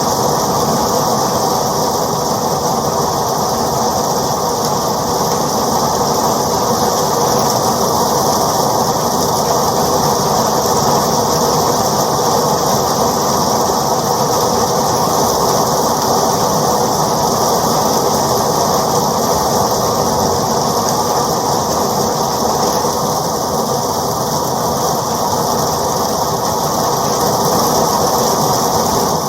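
Steady rain falling, a continuous dense patter with no breaks.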